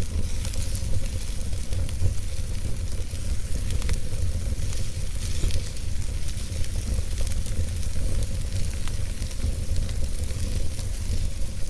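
Wood fire burning in a fireplace, with steady hissing and many small, irregular crackles over a constant low rumble.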